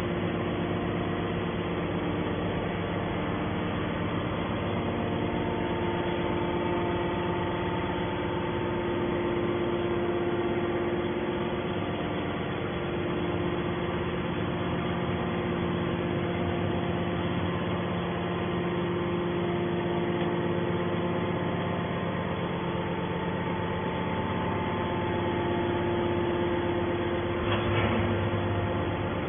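Hydraulic baler's motor and pump running with a steady hum, with a brief louder noise near the end.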